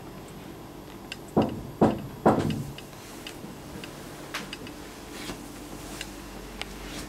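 Three knocks on a door in quick succession, followed by faint ticking about once a second.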